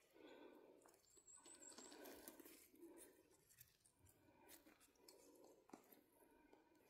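Near silence: faint rustling and scattered light clicks, with a brief, faint high chirp between one and two seconds in.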